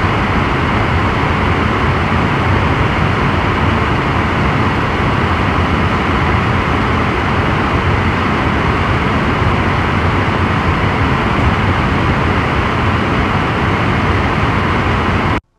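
iMac Pro cooling fans running at maximum speed, heard up close: a loud, steady rush of air that stops abruptly at the end.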